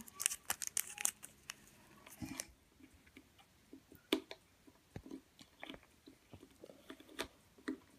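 Hands handling a small plastic toy figure and its wrapper: faint crinkling and crackling for the first couple of seconds, then scattered soft clicks of small plastic parts.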